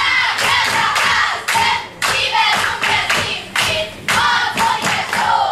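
Children's voices calling out and singing during a folk dance, over sharp hand claps and foot stamps from the dancers.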